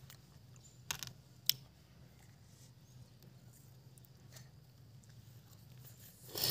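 A few sharp clicks of cooked cockle shells being prised apart by hand, the sharpest about one and a half seconds in, with a faint low hum underneath and a short eating sound at the very end.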